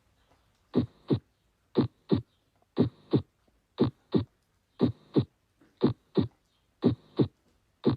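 Heartbeat recording with the two heart sounds, lub-dub, coming in short paired thumps about once a second. The second thump of each pair follows the first by about a third of a second, and the gap before the next pair is silent.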